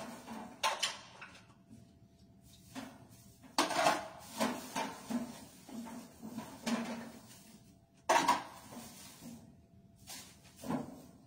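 Irregular clatters and knocks of hard objects being picked up and set down, with softer rummaging between, as things are handled in a box. The sharpest knocks come about a second in, about four seconds in and about eight seconds in.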